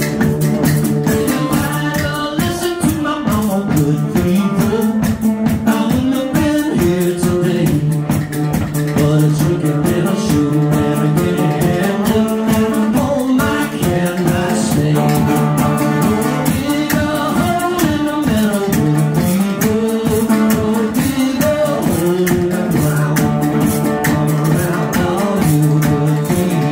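Live folk band playing an instrumental passage: resonator guitar and fiddle over a steady, even beat.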